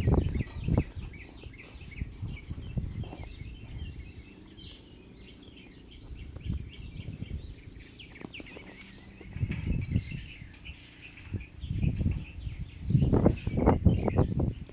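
Birds chirping in open farm country, many short calls overlapping throughout, over a steady high-pitched whine. Bursts of low rumble come and go, loudest near the end.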